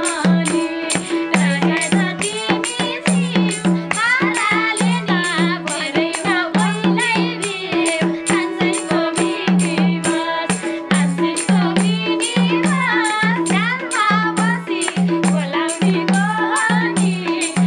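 Nepali dohori folk music: a harmonium and a madal drum with small hand cymbals keeping a steady, quick beat, under voices singing a wavering folk melody.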